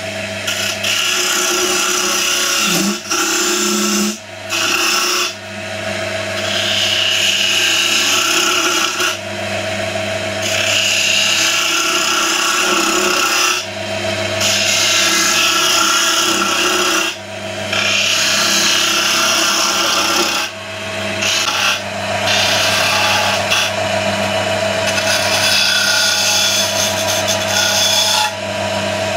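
Wood lathe running with a steady motor hum while a sharp chisel cuts the spinning wooden tulip at its base to redefine it. The scraping rush of the cut comes in passes a few seconds long with brief breaks between them.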